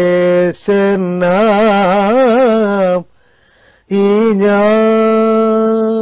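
A male Kathakali singer singing unaccompanied in raga Hindolam: phrases shaken with wavering ornaments, a breath pause about three seconds in, then a long held note.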